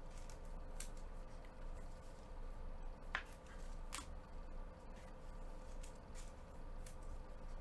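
Trading cards being handled and sorted by hand: a few short, faint card slides and clicks. Underneath them runs a steady faint hum.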